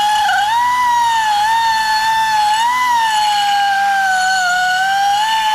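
Hand deburring tool scraping the cut edge of a steel tube, chattering into a loud, high-pitched squeal whose pitch wavers slightly.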